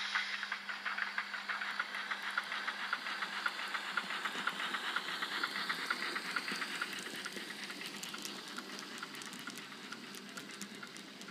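Sound decoder of a model Saxon IV K narrow-gauge steam locomotive playing steam chuffs with hiss, a quick even beat that fades as the train runs away, with the wheels of the passing coaches and wagons clicking on the track near the end.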